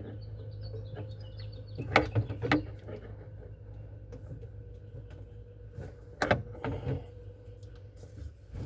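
A few sharp clicks and knocks from hand work on a car's interior parts, a rubber grommet and seat belt harness being worked loose, over a steady low hum.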